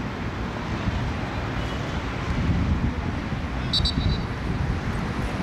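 Wind buffeting the microphone, a steady low rumble over an outdoor background, with a short high two-pulse chirp about four seconds in.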